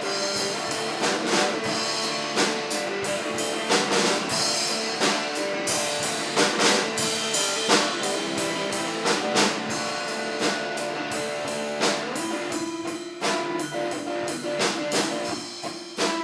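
Live rock band playing an instrumental passage: a drum kit keeping a steady beat under guitar, with no vocals.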